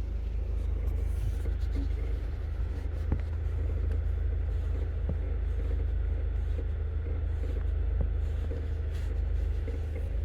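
A car, plausibly the Genesis G70, runs with a steady low rumble and some road noise, with a few faint ticks.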